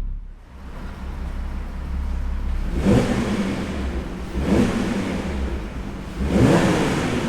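Porsche Cayenne 3.6 VR6 engine on its stock exhaust, running low with three quick revs, about one every one and a half to two seconds.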